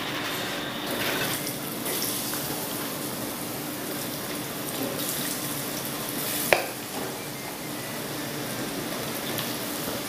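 Hot oil in a frying pan sizzling and bubbling steadily as gram-flour and spinach batter is dripped in through a strainer to deep-fry. A single sharp click about six and a half seconds in.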